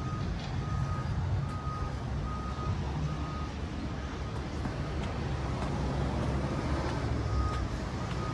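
A vehicle reversing alarm beeping in a steady single tone, about one and a half beeps a second; it stops about three and a half seconds in and starts again near the end. A low engine rumble from heavy machinery runs underneath.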